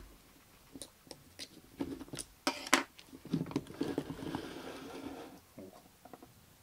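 Plastic clicks and snaps as the angle grinder's housing seam is pried open with a small screwdriver, then a scraping rustle about halfway through as the gear head and armature are slid out of the motor housing.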